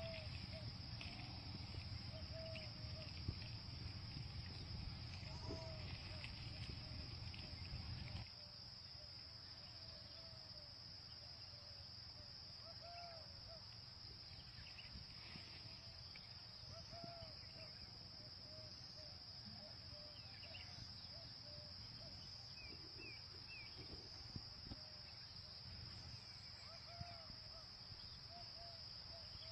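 Outdoor ambience: insects singing in a steady high drone, with many short chirping calls from small animals or birds scattered throughout. A low rumble in the first eight seconds cuts off abruptly.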